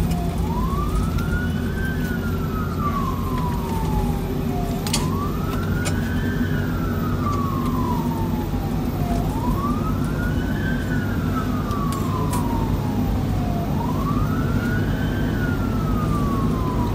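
Fire engine's siren wailing from inside the cab over steady engine and road rumble. Each cycle rises quickly, then falls slowly, repeating about every four and a half seconds.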